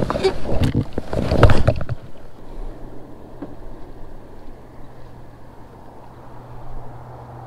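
Close-up clattering and rustling of gear and clothing being handled in a kayak for about two seconds, then a steady low hum.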